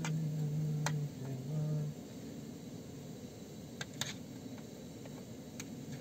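A man humming a tune in a few held notes for about two seconds, then stopping; after that, only a few light ticks from handling food in the bowl.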